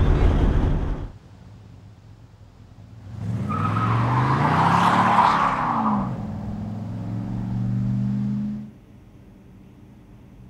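Muscle car engine: loud engine noise for about the first second, then after a quieter gap the car accelerates past with its engine pitch rising and falling over a band of hiss, settling into a steady run that cuts off sharply near the end.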